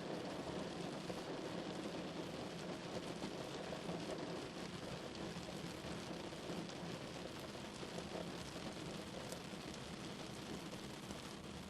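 Heavy rain drumming steadily on a car, a dense patter of drops with a low rumble underneath, easing off slightly near the end.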